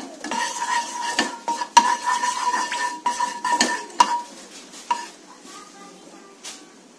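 Wooden spatula scraping and knocking around a non-stick frying pan, spreading cooking oil, with a ringing note from the pan. The stirring goes quiet about five seconds in.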